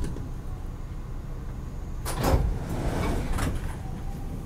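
MBTA subway car running through a tunnel: a steady low rumble of wheels on rail, with a louder rattling clatter about two seconds in and a smaller one a second later.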